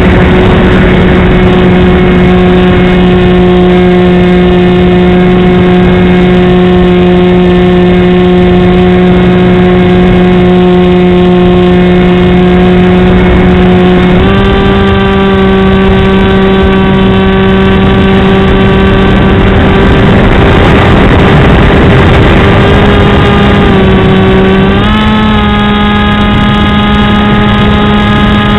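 Electric motor and pusher propeller of a Multiplex Easystar RC plane heard from its onboard wing camera: a loud, steady buzzing drone over rushing air noise. The pitch steps up about halfway through, dips briefly, then steps up again near the end.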